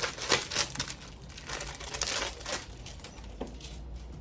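Perfume packaging being unwrapped by hand: irregular crinkling and rustling, busiest over the first two and a half seconds and then a few scattered crackles.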